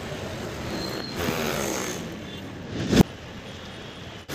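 A single sharp firecracker bang about three seconds in, the loudest sound, coming right after a brief rising hiss, over steady street background noise.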